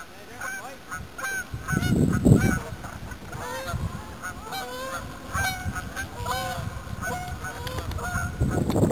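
Many short honking bird calls overlapping one another, as from a flock of waterfowl, with a low rumble about two seconds in and again near the end.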